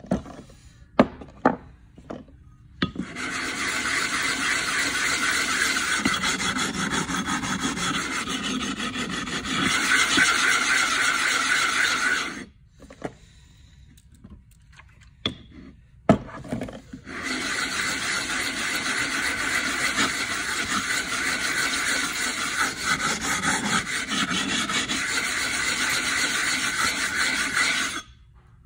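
A flat lapping plate rubbed back and forth over a wet whetstone to flatten its face: steady gritty scraping in two long runs, broken near the middle by a pause with a few light clicks. A few sharp clacks come first, as the stone is set in place.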